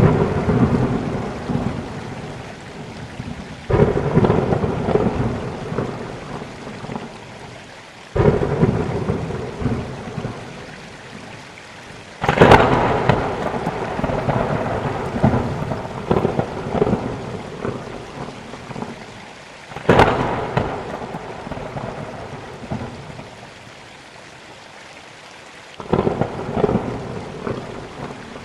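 Steady rain with repeated thunder: five claps, each starting suddenly and rumbling away over a few seconds, the loudest with a sharp crack about 12 s and 20 s in.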